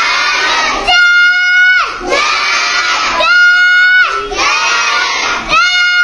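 Young children reading aloud together in a loud sing-song chant, each line ending in a long, high held shout. The cycle repeats about every two and a half seconds.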